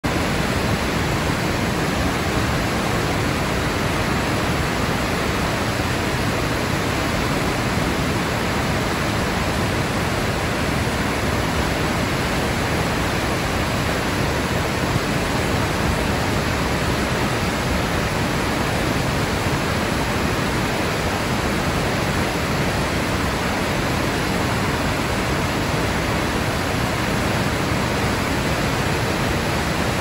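Tall waterfall in heavy flow plunging down a rock face: a steady, unbroken rush of falling water.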